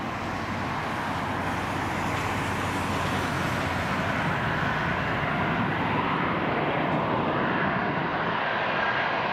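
Jet noise from a British Airways Airbus A380's four Rolls-Royce Trent 970 turbofans on final approach: a steady rush growing louder as the airliner closes in, with a faint high whine near the end.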